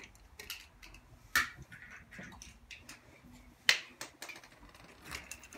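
Scattered sharp plastic clicks and snaps from Beyblade Burst tops being handled and clicked together while the players swap them, the two sharpest about a second and a half in and near four seconds in.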